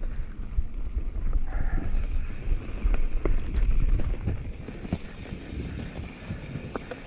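Wind buffeting an action camera's microphone as a mountain bike descends a dirt singletrack: tyres rumbling over the dirt and the bike rattling and knocking over bumps. It is heaviest in the first four seconds or so, then eases.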